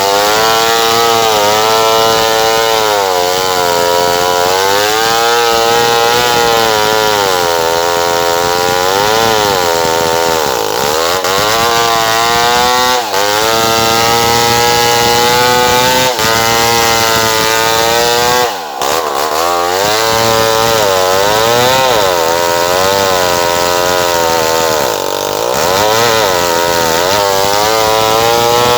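Stihl 070 two-stroke chainsaw running hard, its engine pitch rising and falling over and over as it is revved, with a brief drop in level about two-thirds of the way through.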